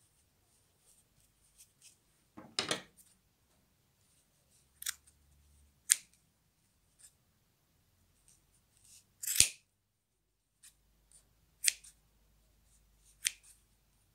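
Metal scissors snipping through the looped yarn of a small pompom, cutting the loops open and trimming them: about six separate sharp snips a second or two apart, with a few fainter ones between, the loudest about nine seconds in.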